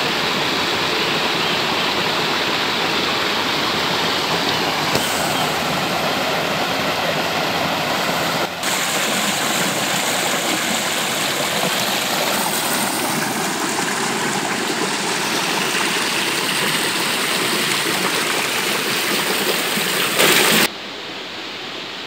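Rocky mountain stream rushing and splashing over boulders in small cascades, a steady loud wash of water. Near the end it cuts off abruptly to a much quieter background.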